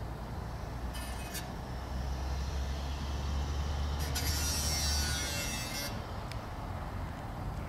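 Low, steady rumble of vehicle traffic that swells in the middle. It is joined by a short hiss about a second in and a longer, louder hiss from about four to six seconds in.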